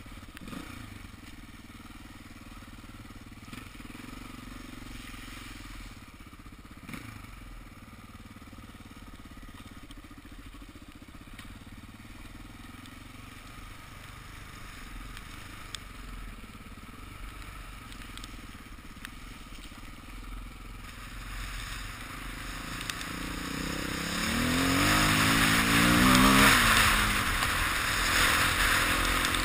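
Dirt bike engine running steadily while riding, fairly quiet at first. About twenty seconds in it revs up and down as the bike speeds up, with rushing wind noise on the microphone growing loud.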